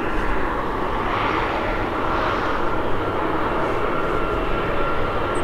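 Jet airliner engines running steadily: an even rumble with a steady whine in it.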